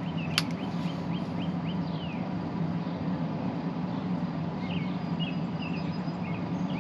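Outdoor ambience of birds chirping, over a steady low hum, with a single sharp click about half a second in. At the very end the spring-piston air rifle's shot begins.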